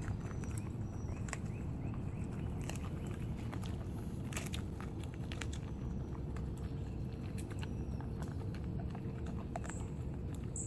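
Alaskan malamute gnawing on a frozen chicken: scattered sharp crunches and clicks of teeth on frozen meat and bone over a steady low rumble.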